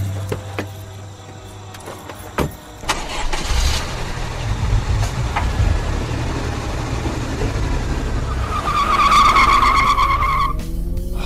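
A car: after a few clicks, the engine starts about three seconds in and runs with a low rumble. Near the end a steady high tone sounds for about two seconds.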